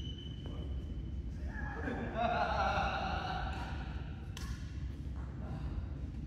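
A drawn-out, high, wavering voice call lasting a few seconds in a large hall, followed about four seconds in by a single sharp knock, over a steady low hum.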